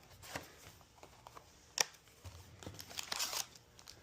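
Trading-card booster bundle packaging handled and opened by hand: several sharp clicks and taps, the loudest a little under two seconds in, and a short crinkling rustle of wrapper about three seconds in.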